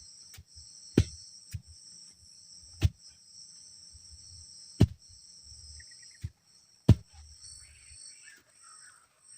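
Steady high-pitched chorus of forest insects such as crickets. Over it come four loud, sharp knocks about two seconds apart, like something struck hard, with low rustling between them. Faint warbling animal calls join near the end.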